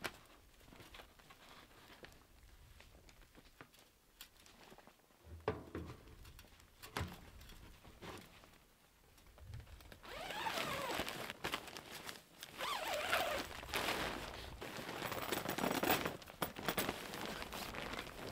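Tent fabric rustling and crinkling as it is handled and lifted, starting about ten seconds in. Before that, only a few faint knocks and clicks.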